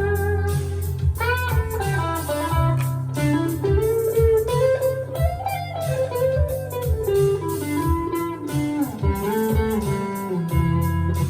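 Rockburn Strat-style electric guitar played through a small valve amp: a single-note lead line with notes bent up and back down.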